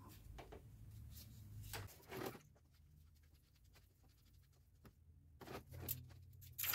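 Faint scattered clicks and short scrapes of hand tools and metal parts being handled while a new idler pulley is fitted, over a faint low hum that drops out about two seconds in and returns near the end.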